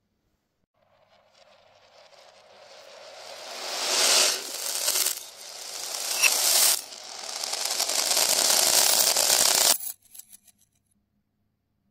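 Masses of small plastic beads rattling and clattering against glass and a hard floor, played in reverse: a dense clicking rattle that swells over several seconds, dips briefly twice, and cuts off abruptly. A few faint clicks follow.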